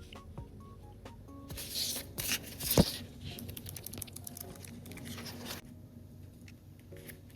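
Paper being handled for a collage: rustling and crinkling for a few seconds, loudest around the middle, with one sharp tap near three seconds in. Soft background music plays along.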